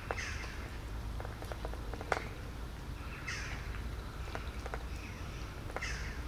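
Cats eating from a plastic food tub: small clicks and knocks of chewing and of the tub being nudged, the sharpest about two seconds in. A bird calls several times with short falling chirps over a steady low background rumble.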